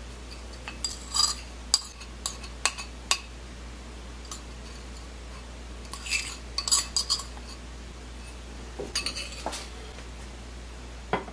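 A metal spoon clinking and scraping against ceramic dishes as the last of a sauce is scraped out of a bowl. The clinks and scrapes come in three short bouts.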